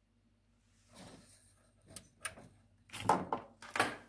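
Handling and movement noise: a few scattered rustles and sharp clicks or knocks, the loudest cluster near the end.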